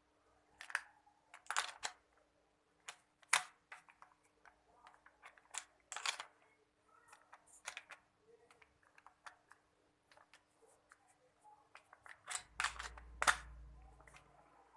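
Irregular clicks, taps and knocks of hard objects being handled, spaced unevenly throughout. A low rumble sits under the last few knocks near the end.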